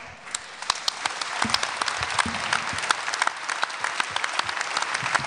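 Crowd applauding: dense clapping that swells up about half a second in and holds steady.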